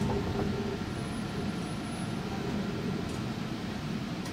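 Steady hum and low rumble inside an O-Train Confederation Line light-rail car (Alstom Citadis Spirit), from its ventilation and running gear, with a few faint steady tones over it.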